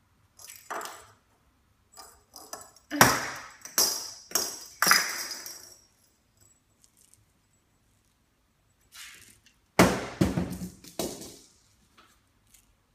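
A small plastic cat ball toy knocked off a shelf, hitting a hard floor and bouncing several times about three seconds in; a second drop with quicker bounces follows about seven seconds later.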